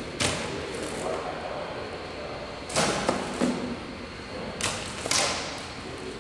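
Whole crabs being handled and dropped into a plastic-lined box on a weighing scale: several sudden rustles and clatters of shell against the plastic liner, over steady background noise.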